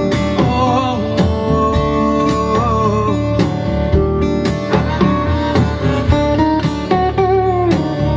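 Instrumental passage of a recorded song: a guitar lead line with bending notes over a strummed guitar, bass and a steady drum beat.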